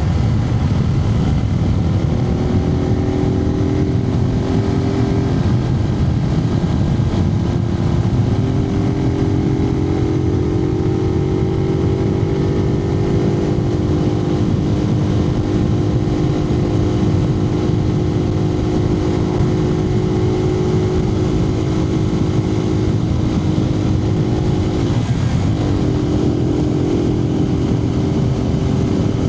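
Suzuki TU250X's single-cylinder four-stroke engine running under way, heard from inside the rider's helmet over heavy low wind and road rumble. The engine note steps in pitch a few times in the first several seconds, then climbs slowly. It dips and recovers briefly about 25 seconds in.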